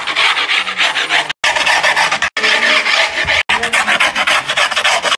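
Screwdriver shaft scraping fast back and forth along the edge of fresh griptape on a skateboard deck, scoring the edge so the excess can be trimmed. The rasping is loud and cuts off abruptly for an instant three times.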